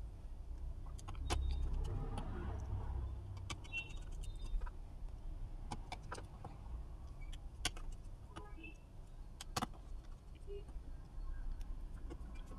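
Faint handling noise of a screwdriver driving screws into a laptop's aluminium keyboard plate: scattered small metallic clicks and ticks at irregular intervals over a low hum.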